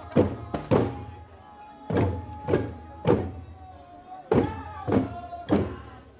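Music led by a drum struck in a regular beat, about two strikes a second with short pauses between groups, with held voice-like notes sounding between the strikes.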